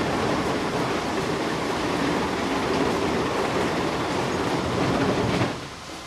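Sawmill machinery running with a loud, dense rattling clatter; it drops off abruptly about five and a half seconds in, leaving a quieter steady machine noise.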